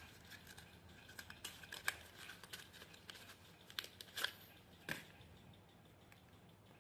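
Faint handling of paper craft pieces: soft crinkles and light clicks, with a few sharper ones in the middle, quieter near the end.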